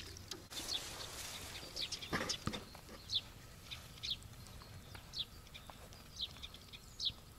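A small bird calling over and over outdoors, a short sharp high call about once a second, with a faint steady outdoor background. A brief louder sound comes a little over two seconds in.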